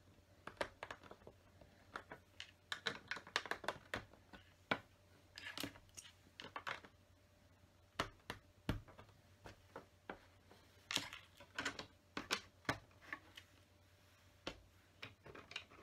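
Plastic LEGO bricks clicking and tapping as pieces are picked up from the table and pressed onto the model, with irregular scattered clicks and a few sharper snaps.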